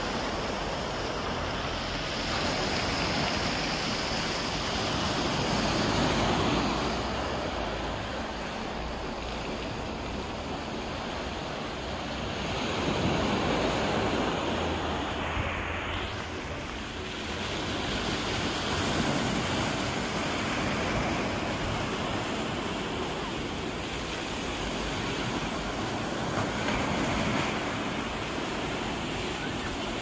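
Sea surf breaking and washing up a pebble beach, the rush of water swelling and fading every several seconds.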